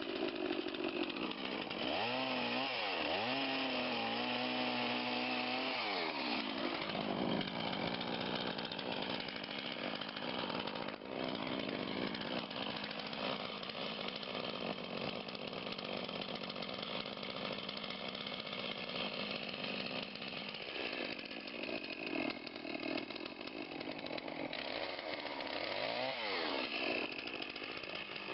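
Chainsaw cutting through a large beech trunk, making the stepped felling back cut. Its engine pitch swings up and down a few seconds in and again near the end as the chain goes in and out of the wood, and it runs steadily under load in between.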